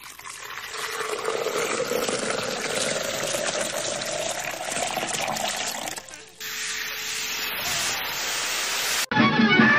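Cartoon sound effect of a long rushing, gushing hiss with a tone that slowly rises, like something filling up, then a second steady hiss that cuts off suddenly about nine seconds in.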